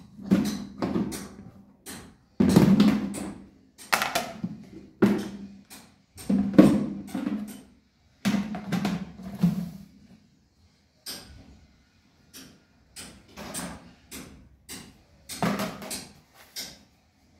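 Plastic food storage canisters and their lids knocking and clattering as they are handled, fitted shut and set down on a granite countertop: irregular hollow knocks, fainter in the second half.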